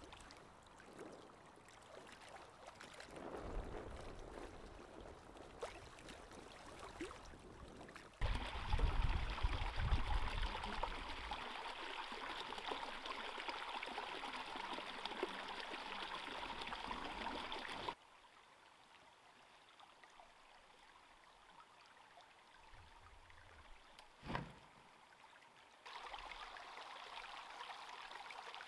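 A small rocky brook pouring over a stone ledge in a steady rush of water. It starts suddenly about eight seconds in and cuts off about ten seconds later. Before it come fainter, uneven water sounds; after it a quieter brook trickles, with one dull thump in between.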